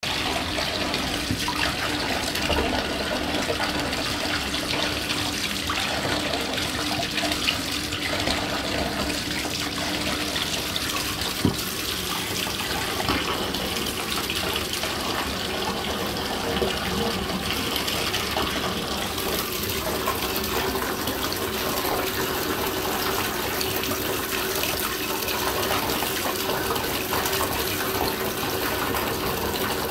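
Bath tap running steadily, its stream pouring into a partly filled bathtub, with a few brief knocks along the way.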